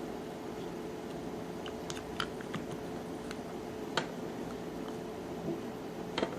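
Plastic top housing of an Andis Outliner clipper being fitted back on by hand: scattered sharp clicks and taps, the loudest about four seconds in and two close together near the end, over a steady room hum.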